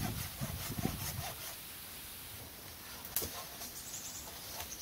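Dead wooden poles being handled: a cluster of knocks and scrapes as a pole is pulled from a snowy pile of dead logs, then one sharp knock a little after three seconds in and a few light taps near the end.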